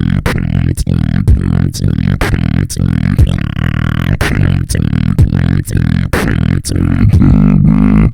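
Human beatboxing in an electronic style: a continuous deep bass line under sharp snare-like clicks about twice a second, imitating electronic music.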